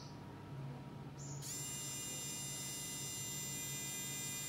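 Xiaomi Mijia electric precision screwdriver's motor and metal gearbox running, a steady high-pitched whine that starts about a second and a half in, just after a short click.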